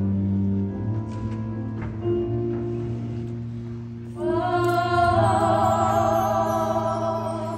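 Musical-theatre song performed live: the accompaniment holds sustained chords, then about four seconds in several female voices come in together on a long held note in harmony, with vibrato.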